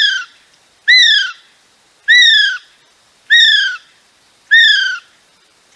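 Kiwi call: a series of shrill whistles, each rising briefly and then sliding down, repeated evenly about once every second and a bit.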